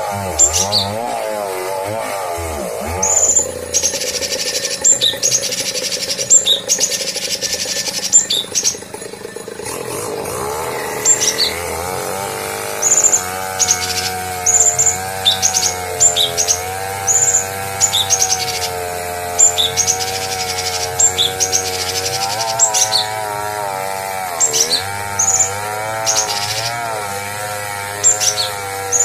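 Cucak cungkok song played as a masteran (training) recording: short, high, curved chirps repeated every half second to a second. Beneath them runs a continuous, wavering lower tone.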